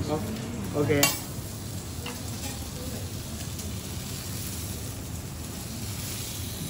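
Steady sizzling of a wagyu fillet steak cooking on a hot teppanyaki griddle.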